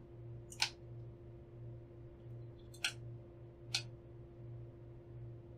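Three sharp plastic clicks as AAA batteries are fitted into a small toy-drone remote controller's battery compartment, over a steady low hum.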